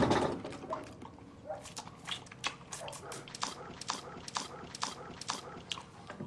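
A run of irregular light clicks and knocks, about two or three a second.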